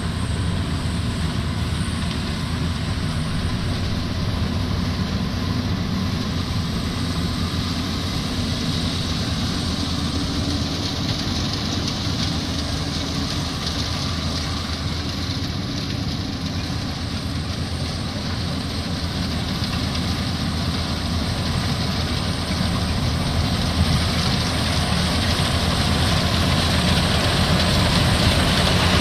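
Maxxi Bimo Evo Xtreme rice combine harvester running with a steady engine and machinery noise, getting louder over the last several seconds as it comes closer.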